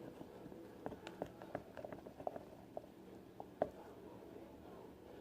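Fluffy slime of glue and shaving cream being mixed by hand: a run of small, irregular wet clicks and pops, the loudest about three and a half seconds in.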